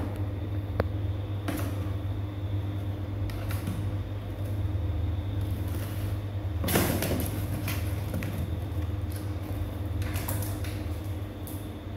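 Torn cardboard box scraping, creaking and knocking as a kitten climbs over it, in short scattered bursts, the loudest about seven seconds in. A steady low hum lies underneath.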